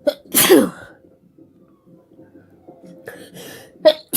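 A person sneezing: a loud sneeze about half a second in with a falling voiced cry, then quick sharp breaths and the start of another sneeze at the very end.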